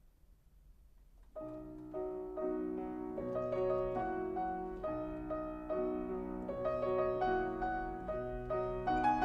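Grand piano music begins about a second and a half in, after a near-quiet pause between movements: the opening chords of an Allegretto grazioso movement for two pianos, played live.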